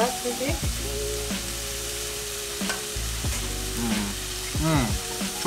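Pheasant meat with garlic and sesame oil sizzling on a tabletop grill plate, a steady frying hiss.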